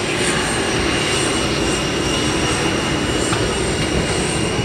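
Steady rushing air and machinery hum with a thin, constant high whine, heard inside a parked KC-135R Stratotanker's cockpit.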